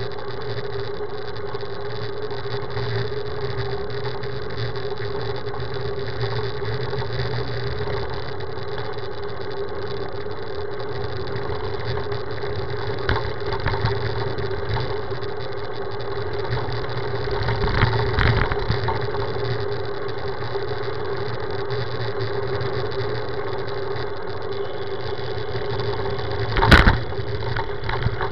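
Steady rumble and road noise of a road bike riding over asphalt, picked up by a camera mounted on the bike, with a constant hum underneath. A single sharp knock comes near the end.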